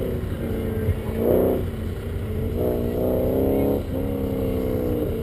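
Pickup truck engine revving in two short bursts, the second longer, then easing back, with low wind rumble on the roof-mounted camera.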